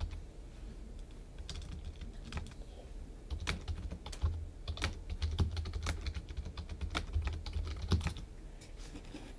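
Typing on a computer keyboard: irregular key clicks in short runs with pauses between them, over a low steady hum.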